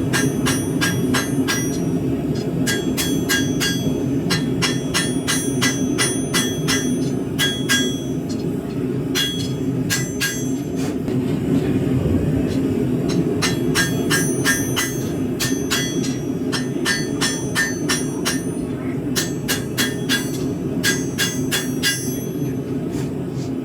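Hand hammer striking hot high-carbon steel on an anvil in runs of quick ringing blows, about two to three a second, with a short pause about eight seconds in and a longer one about eleven seconds in. A forge runs steadily underneath.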